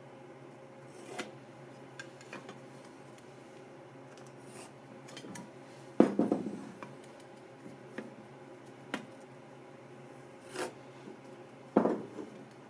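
Handling sounds of a clear plastic marking guide and pencil on the end of a wooden 4x4: scattered light clicks and taps, with two louder knocks, one about six seconds in and one near the end. A low steady hum sits underneath.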